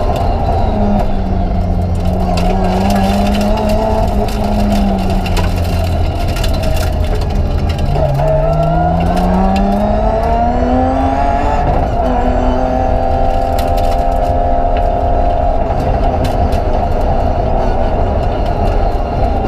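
BMW 325 Group A rally car's straight-six engine pulling hard at high revs, heard inside the cabin over heavy road noise. About eight seconds in the revs drop and then climb steadily under acceleration, then fall suddenly at an upshift near twelve seconds before running on steadier.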